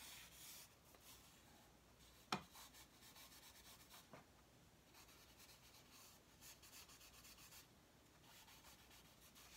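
Faint scratchy rubbing of a stick of charcoal dragged on its side across drawing paper, with one sharp tap about two seconds in.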